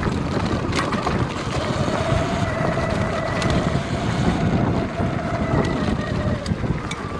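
Sur Ron X electric dirt bike riding over a rough trail: a steady electric-motor whine over wind rumble on the helmet microphone, with a few sharp knocks as it goes over rocks.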